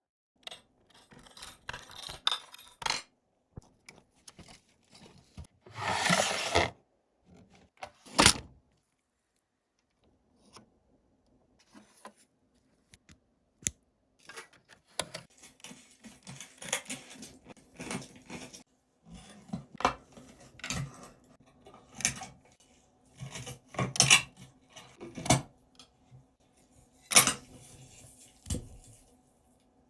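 Small metal parts and tools of a 1/18 scale diecast model car being handled on a work surface: irregular clinks, taps and scrapes. There is a short rasping noise about six seconds in and a quiet spell in the middle.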